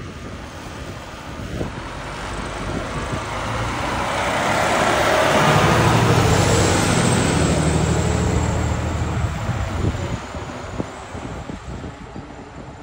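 A fire engine's diesel engine driving past at close range, growing louder to a peak about six seconds in and then fading as it pulls away.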